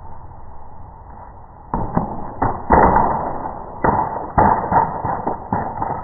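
A skateboard knocking and clattering in a quick run of hard impacts that starts a little under two seconds in, as tricks are tried on the wrecked keyboard.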